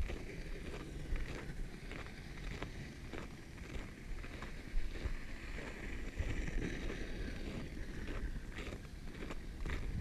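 Wind buffeting the microphone as a low rumble, with irregular crunching footsteps in packed snow.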